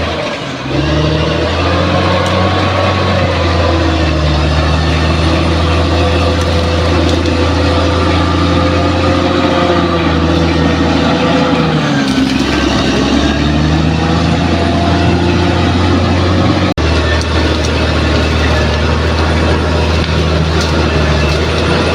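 Bulldozer's heavy diesel engine running steadily under load, its note sagging and picking up again about a second in and around twelve seconds in. It breaks off abruptly for an instant about seventeen seconds in.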